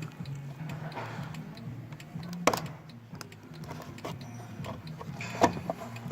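Plastic door-mirror cowling being worked loose by hand: scattered small plastic ticks and two sharp clip snaps, about two and a half and five and a half seconds in, over a steady low hum.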